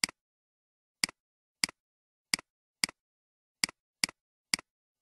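Computer mouse clicking about nine times at uneven intervals, roughly half a second to a second apart. Each click is a sharp press followed at once by a softer release.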